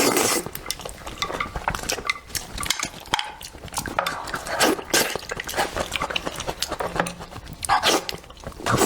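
Close-miked eating of braised pig's trotter: wet chewing, sucking and lip-smacking, with many sharp mouth clicks and a few short voiced sounds.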